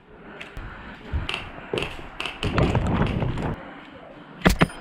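Scattered knocks and rustling from moving through the field. About four and a half seconds in come two quick sharp cracks, the loudest sound, typical of airsoft rifle shots.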